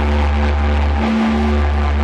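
Loud, droning psychedelic rock: sustained, heavily distorted low notes under a dense wash of noisy guitar texture, with the low note shifting about a second in.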